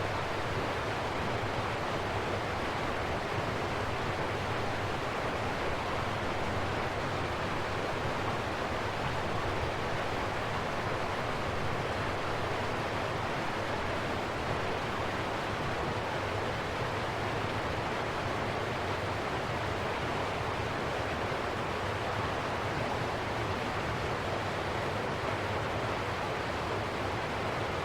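River water flowing: a steady, unbroken rush of water noise that holds an even level throughout.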